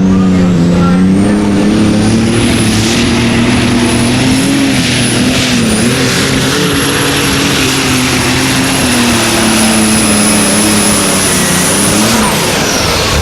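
Light super stock pulling tractor's engine running hard under load during a pull, its pitch wavering up and down, with a high steady whine over it. Near the end the whine cuts off and the engine note falls away.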